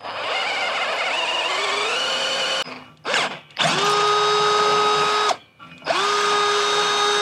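Cordless drill boring a hole through a steel brush-guard bracket with a sharp twist bit and cutting oil, its pitch rising as it cuts for about two and a half seconds. After a short pause it runs twice more with a steady whine, each burst about a second and a half.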